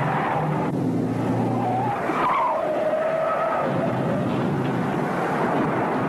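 Car being driven fast through bends, engine running and tyres squealing. The wavering squeal starts about two seconds in.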